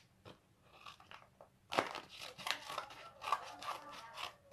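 Scissors cutting into a paper mailing envelope, with crisp paper crinkling and crackling as it is cut and pulled open; the crackles start a little under two seconds in and run on densely.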